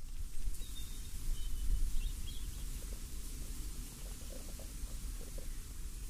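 Breeze with a steady low rumble and a soft hiss of rustling leaves, with a few faint bird chirps in the first half.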